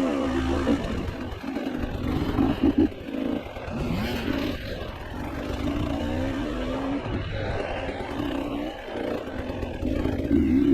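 Off-road vehicle engine on a trail ride, its pitch rising and falling again and again as the throttle is worked, sped up to 1.5 times normal speed so it sounds higher and quicker.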